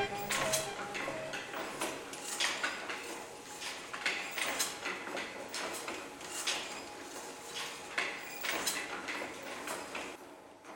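Irregular metallic clicks and clacks, roughly one or two a second, from letterpress printing equipment being worked, growing fainter toward the end.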